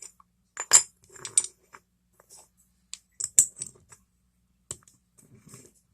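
Machined metal motorized-bicycle sprocket-mount parts clinking and tapping together as they are handled: a handful of light metallic clinks, spread irregularly.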